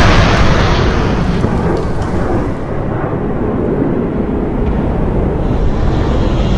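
Deep rumble of an explosion dying away. The high end fades over the first few seconds while the low rumble carries on, then it swells again near the end.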